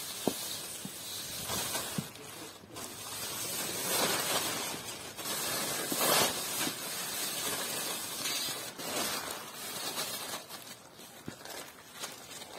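Thin clear plastic sheet crinkling and rustling in uneven swells as puppies move and tug on it over paving.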